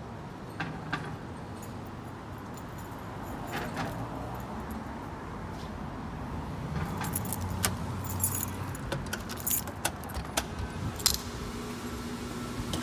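Keys jangling and a key working in a glass shop door's lock, a run of sharp metallic clicks and jingles in the second half, over a steady low rumble of street traffic.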